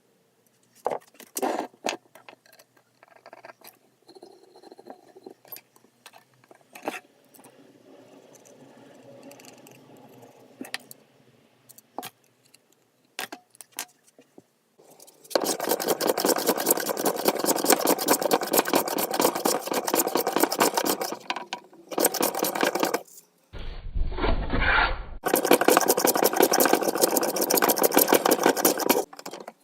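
Scattered light clicks and soft scraping, then from about halfway loud rapid scraping strokes of a tool worked against the axe, in several stretches that start and stop abruptly.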